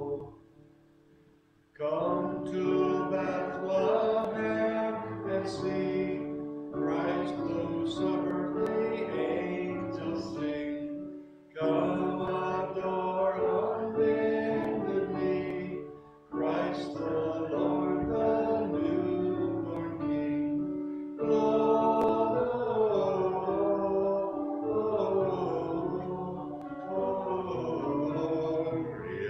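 A hymn sung to instrumental accompaniment, starting about two seconds in after a brief pause and running on in phrases with short breaks between them.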